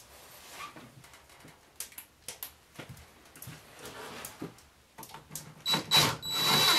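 Light rustling and small knocks of handling against a wooden frame, then near the end a cordless drill starts up with a steady high whine, driving a screw into the wooden beam.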